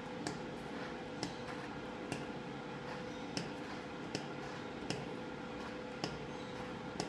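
Foaming hand-soap pump dispenser being pressed over and over, a sharp click roughly once a second, as the bottle runs out of foam.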